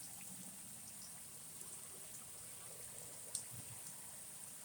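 Heavy rain falling steadily, heard as a faint, even hiss, with one small tick about three seconds in.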